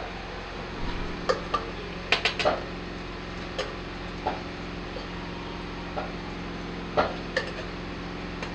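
Metal spoon knocking and scraping against an aluminium cooking pot and its lid, in scattered sharp clinks, a quick run of three about two seconds in, over a steady low hum.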